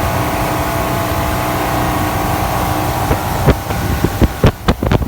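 Motorboat engine running steadily under way. About three and a half seconds in, irregular buffeting of wind on the microphone begins.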